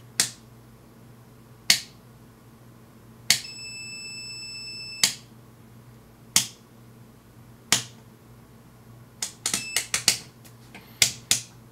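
Amprobe AM-530 digital multimeter's rotary range selector being turned step by step with its leads on live mains, clicking from detent to detent a dozen or so times. The meter gives a steady high beep for about a second and a half about three seconds in, and a few short beeps near the end.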